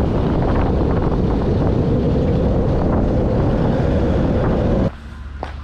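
Heavy wind buffeting a camera microphone mounted on the outside of a moving SUV, mixed with the vehicle's road and engine noise. It cuts off suddenly near the end.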